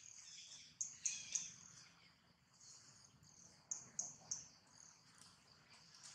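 Faint high-pitched chirping over a quiet outdoor background. Three quick chirps come about a second in, and three more near the middle.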